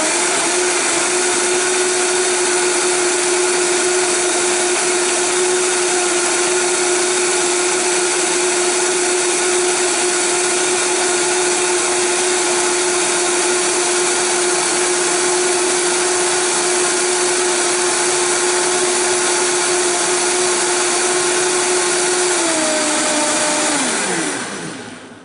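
Vitamix blender running at high speed with a steady motor whine, blending pineapple, yogurt, coconut milk and ice into a smoothie. Near the end the pitch steps down, and then the motor is switched off and spins down, the whine falling away.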